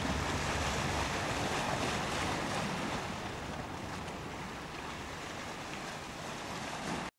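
Wind rushing on the microphone over water noise, with a low steady hum underneath for the first second or so; the sound cuts off suddenly about seven seconds in.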